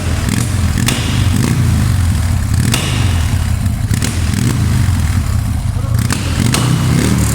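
Buell motorcycle engine running steadily with a deep, even exhaust note, swelling slightly now and then. A few sharp clicks sound over it.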